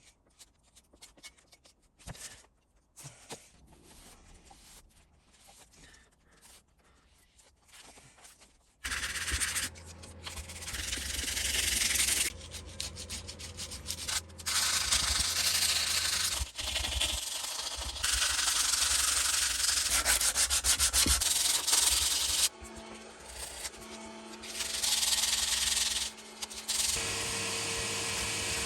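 Sanding a metal vise part smooth: faint scraping for about the first nine seconds, then loud, steady sanding with a few short pauses.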